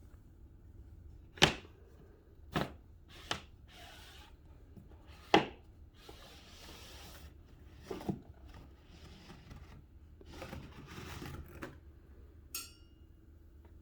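Sharp knocks and bumps with rustling and scraping in between, as a power cable is pulled through a wall cavity on a length of paracord. There is a short metallic ring near the end.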